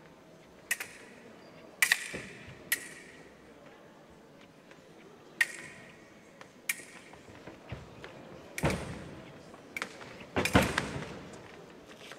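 Foil fencing bout: sharp metallic clicks of the foil blades striking each other, several with a short ring, mixed with footwork stamps on the piste. The loudest cluster of knocks comes about ten and a half seconds in.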